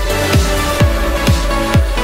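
Electronic dance music with a steady kick drum, about two beats a second, over sustained synth tones.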